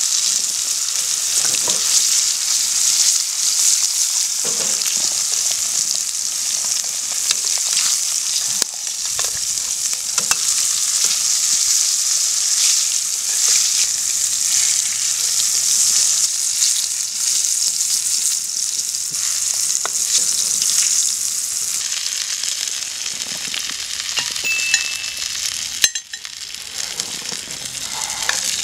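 Flour-dredged pike pieces frying in hot oil in a pan: a steady sizzle with scattered pops. The sizzle thins a little in the last several seconds.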